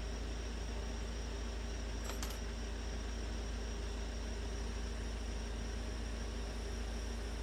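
Steady background hiss with a low rumble and a faint steady hum, with one faint tick about two seconds in and no loud bangs.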